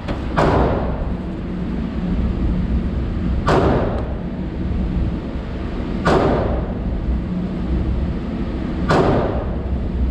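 Four gunshots at slow, aimed pace, about three seconds apart, each with a short ringing decay, over a steady low rumble.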